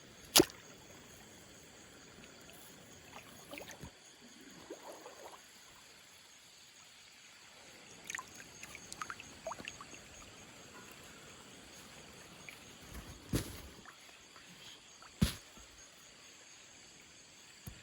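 Water lapping and trickling, with a few sharp knocks: one about half a second in and two more close together near the end.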